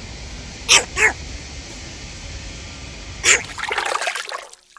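A dog sneezing: three short, sharp snorts, two close together about a second in and one more a little after three seconds, over a steady background hiss.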